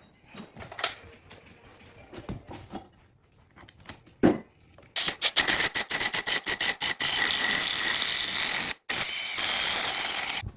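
Scattered light knocks and taps, then a handheld power tool started in rapid short bursts and then held running for a few seconds, with one brief stop.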